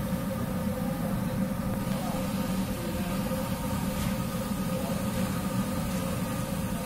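Steady low mechanical rumble with a constant hum.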